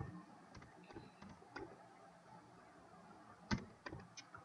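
A few faint, scattered computer keyboard key presses, single sharp clicks with gaps between them, the loudest about three and a half seconds in.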